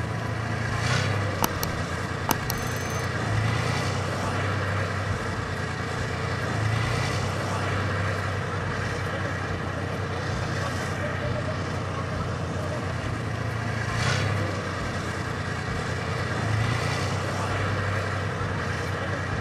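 Steady low rumble of a running vehicle engine, swelling and easing every few seconds, with two sharp clicks a couple of seconds in.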